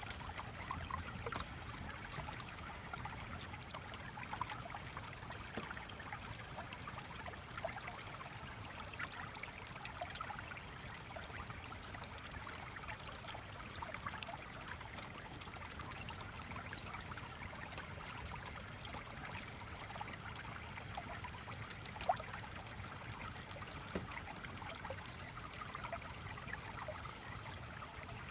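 Stream flowing with a steady babbling trickle, with one sharp click about three-quarters of the way through.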